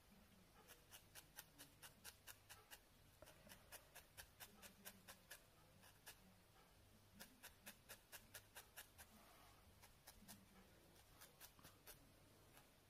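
Barbed felting needle jabbed repeatedly into wool: faint, quick ticks at about four a second, in runs of a few seconds with short pauses between them.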